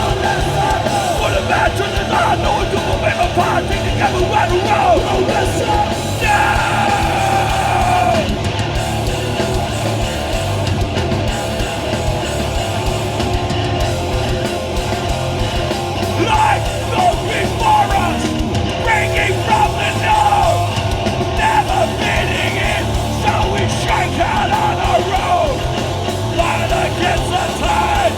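Live hardcore punk band playing loudly with distorted guitars, drums and shouted vocals.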